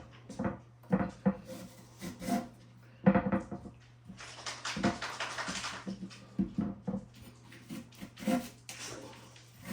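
A knife cutting apples on a cutting board: irregular knocks and clicks, with a longer scraping stretch in the middle, over a steady low hum.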